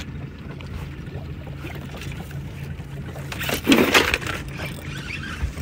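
Boat motor idling with a steady low hum. About two-thirds of the way through, a loud rushing noise lasts about half a second.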